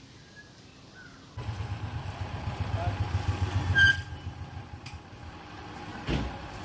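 Lorry's diesel engine running, a low pulsing rumble that comes in suddenly about a second and a half in, is loudest near the middle and then eases off, with a single knock near the end.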